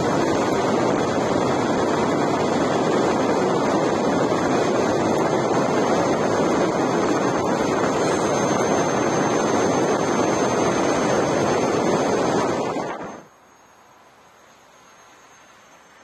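Steady rush of wind on the microphone and rolling road noise on asphalt while moving with an electric unicycle, with a faint high whine above it. It cuts off suddenly about thirteen seconds in, leaving a much quieter background.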